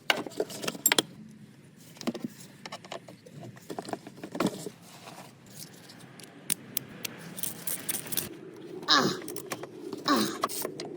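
Wrench and metal parts clinking and clicking in short, irregular knocks while a car battery is unbolted.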